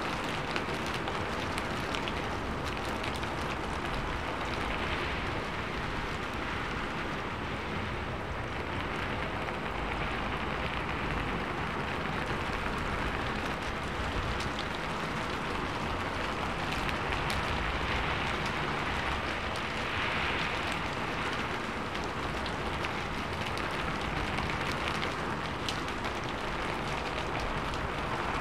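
Steady rain falling on a sheet-metal roof: a dense patter of individual drop taps over an even hiss.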